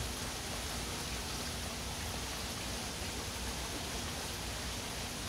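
Hurricane rain and wind: a steady, even hiss, with a low, uneven rumble of wind on the microphone underneath.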